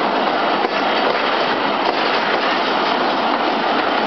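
Pakistan Railways passenger coaches rolling past at close range: a loud, steady noise of steel wheels running on the rails.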